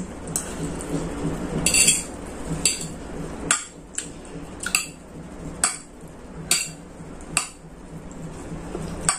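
Metal fork clinking and scraping against a ceramic plate while noodles are scooped and twirled, in about ten short, irregular clinks, roughly one a second.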